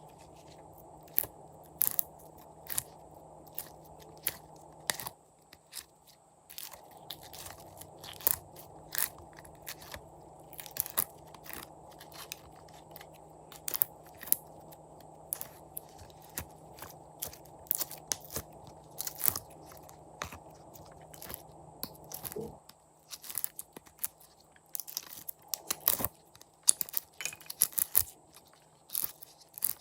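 Glossy slime being worked by hand, giving a run of irregular crisp clicks and crunchy crackles over a faint steady hum.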